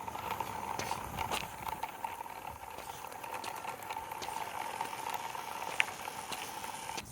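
Small electric motor of a homemade toy car running with a steady whine and a light rattle, cutting off near the end.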